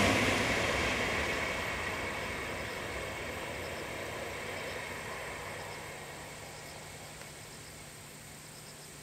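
Shinkansen high-speed train running away into the distance, its rushing rail noise dying away steadily. Faint insect chirps show through as it fades.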